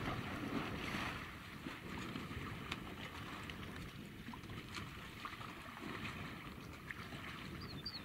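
Steady low outdoor wind rumble on the microphone, with faint scattered clicks.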